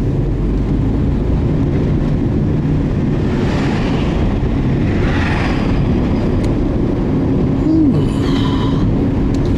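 Steady low road and engine rumble of a vehicle driving, heard from inside, with a brief swell of hiss around the middle.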